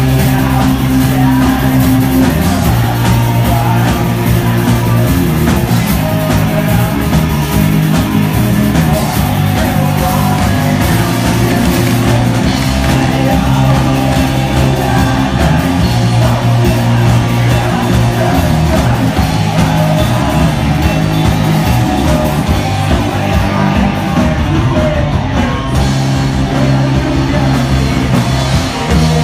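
Live rock band playing loud: electric guitars, bass and drums, with a man singing into the microphone.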